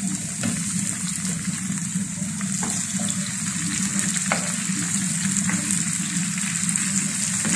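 Chopped onion, garlic and tomato sizzling steadily in a nonstick frying pan while a wooden spatula stirs them, with the spatula scraping and tapping on the pan now and then.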